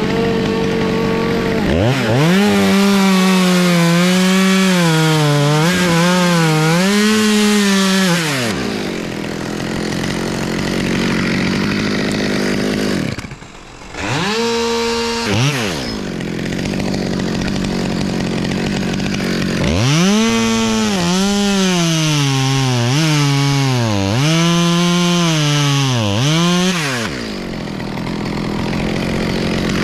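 Two-stroke top-handle chainsaw cutting through beech stems. It revs up and holds under load for about six seconds, the pitch wavering and dipping as the chain bites, then drops back to idle. It gives a short rev in the middle, then makes a second long cut of about seven seconds before settling to idle again.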